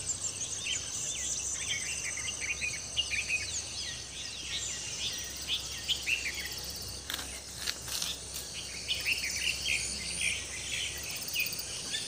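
Outdoor ambience of many birds chirping over a steady, high, pulsing trill of insects, with a few brief clicks about seven to eight seconds in.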